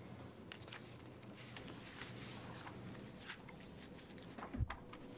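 Quiet meeting-room tone with a faint steady hum and scattered small clicks and rustles, and a single low thump about four and a half seconds in.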